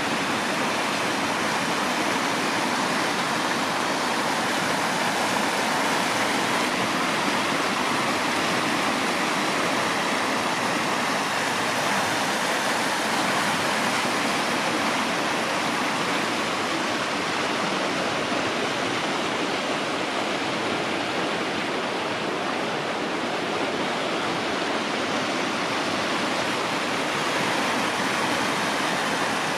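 Steady rushing of flowing water, an even, unchanging noise with no rise or fall.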